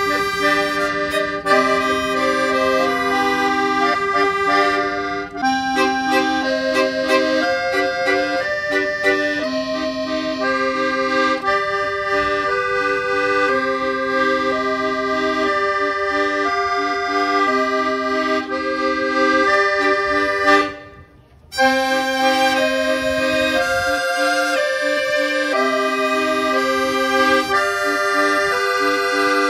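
Music with an accordion-like melody over sustained chords, breaking off briefly about 21 seconds in.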